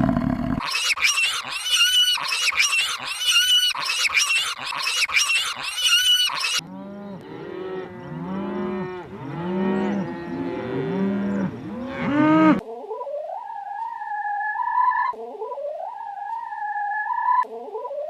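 Three different animal calls cut back to back. First comes a run of high, repeated calls, then a series of short, low, repeated calls, then drawn-out calls that glide up and down in pitch.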